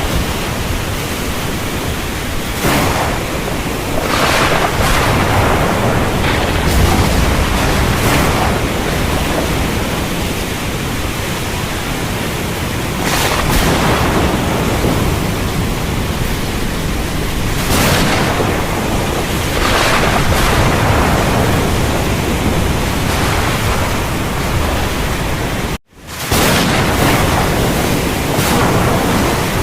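Rainstorm sound-effect ambience: a dense, steady rush of rain with broad swells every few seconds. It drops out for an instant near the end.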